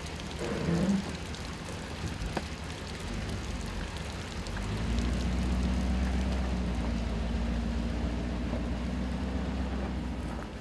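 A truck's engine running as it manoeuvres in close, its low rumble growing louder about five seconds in.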